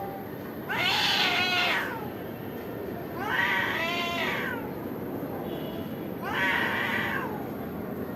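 Cats yowling in a fight standoff: three long, drawn-out wavering yowls, each rising and then falling in pitch, a couple of seconds apart.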